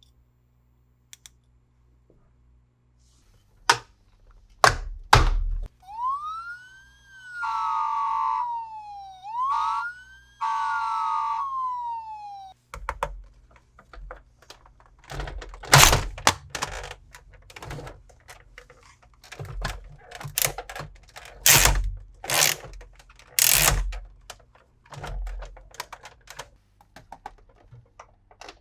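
A few plastic clicks, then a toy vehicle's electronic siren wails in two rising-and-falling sweeps over about seven seconds, followed by a run of hard plastic knocks and clicks from the toy being handled.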